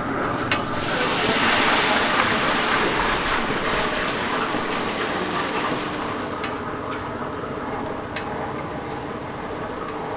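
Steady hissing noise that swells over the first few seconds and then eases, with a few faint clicks.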